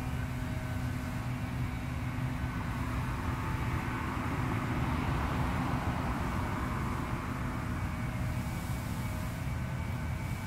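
Steady low rumble of motor vehicles running, with a faint hum, swelling for a few seconds in the middle as if one passes closer.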